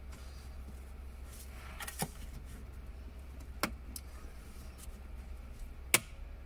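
A few sharp plastic clicks as a small steering-wheel wiring connector is worked loose: three separate clicks, the loudest near the end, over a low steady hum.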